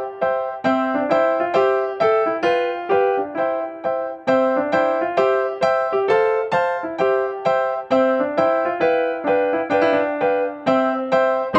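Background piano music: a light melody of quick, evenly struck notes at a steady tempo.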